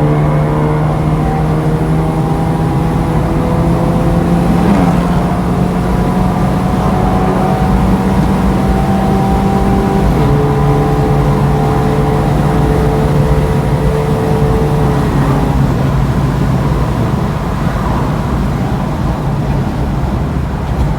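Honda Civic FD's four-cylinder engine running at fairly steady revs on the move, with a steady droning note whose pitch shifts a few times, about 5, 10 and 15 seconds in.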